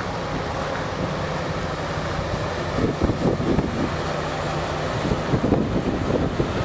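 Wind buffeting the microphone in uneven gusts over the steady low hum of a ship's engine, with a rush of water along the hull.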